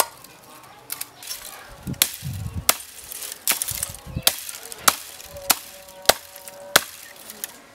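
A large knife blade chopping dry branches on bare ground: about ten sharp chops, one every half second to second, with twigs crackling between strokes.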